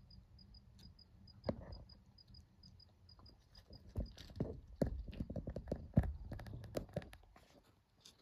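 A cricket chirping in a steady, fast, high rhythm that fades out about halfway. One sharp knock comes about a second and a half in, then a dense run of close clicks and knocks from about four seconds in to near the end, the loudest sounds.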